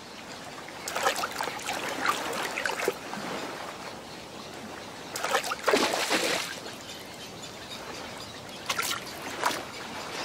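Shallow water splashing as an egret stirs up and stabs at small fish. The splashes come in bursts: one about a second in, a louder one around the middle, and two short ones near the end.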